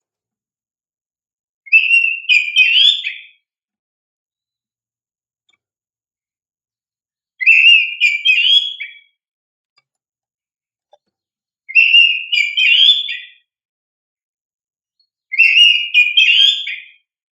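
Oriental magpie-robin (kacer) singing four short phrases of loud, whistled, warbling notes, separated by pauses of a few seconds.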